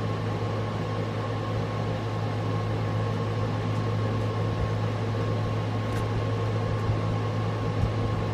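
A steady low hum with a faint higher tone above it, unchanging throughout. A light tick about six seconds in.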